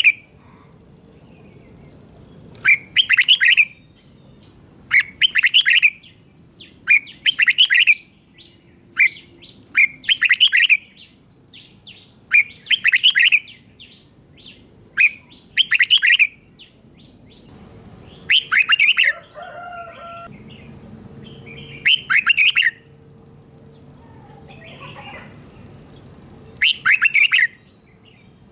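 Red-whiskered bulbul singing its short warbled song phrase over and over, about one phrase every two to three seconds, each phrase doubled. Softer calls come between the phrases in the last third.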